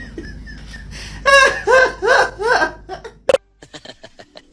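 A person laughing in four high-pitched pulses, followed by a single sharp click and a few faint ticks.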